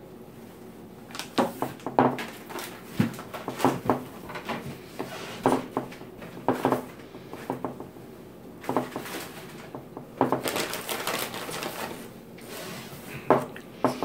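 Irregular clicks, knocks and short scrapes of hands and a spoon working over glass baking dishes and jars, coming in quick clusters from about a second in.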